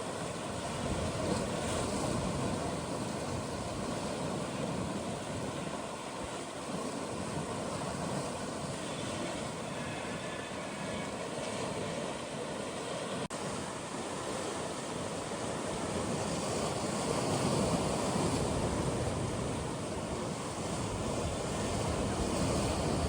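Atlantic waves washing in among shoreline rocks, a continuous surging wash that swells and eases, with wind buffeting the microphone.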